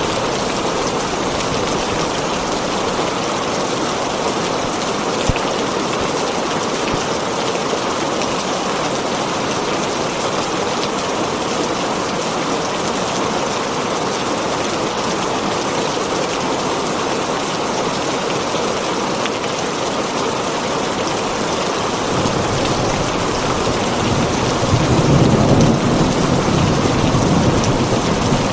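Heavy rain falling steadily on a tin roof. A low rumble of thunder comes in during the last several seconds and grows louder toward the end.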